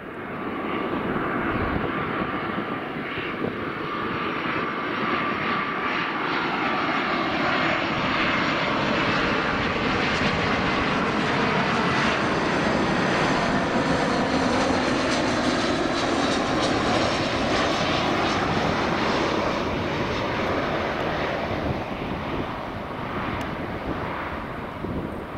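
Airbus A320 jet airliner on approach to land, its twin turbofan engines running with a steady whine over a broad jet roar. The sound swells in the first couple of seconds, holds loud through the middle with slowly sweeping tones as the aircraft passes, and eases off near the end.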